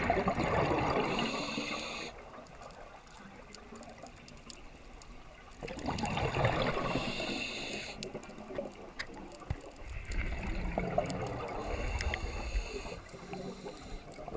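Scuba regulator exhalations underwater: three bubbling rushes of exhaled air, each about two seconds long and about five seconds apart, heard through a GoPro's waterproof housing.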